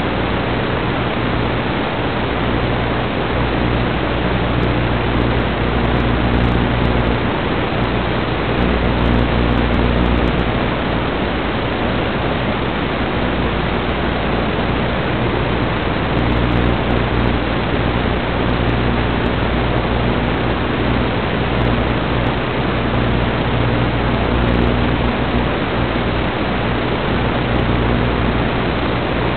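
Steady static hiss from an analog FPV video link's recorded audio, with a faint low hum underneath that strengthens and fades every few seconds.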